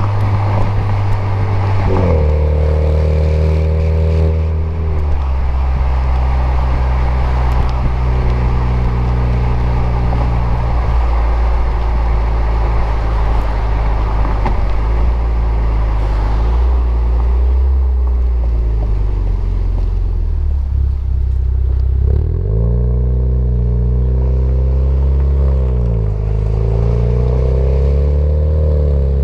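2020 Alfa Romeo Stelvio's engine running through a Supersprint full exhaust with race-version muffler while driving. The exhaust note holds steady for long stretches and rises and falls in pitch with the revs, near the start and again over the last several seconds.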